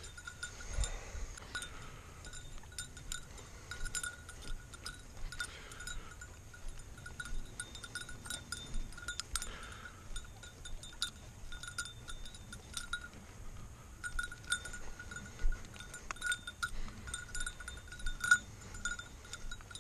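A small bell on a springer spaniel's collar tinkling faintly and irregularly as the dog runs and quarters through grass, with short scuffs and rustles mixed in.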